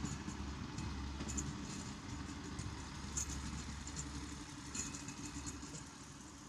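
Diesel railbus engine running steadily with a low hum, slowly growing fainter.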